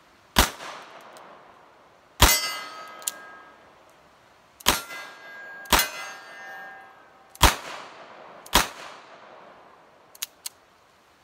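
Six shots from a Nagant Model 1895 revolver in 7.62 Nagant, fired at an uneven pace over about eight seconds, several of them followed by a metallic ring from a struck steel target. Two light clicks near the end.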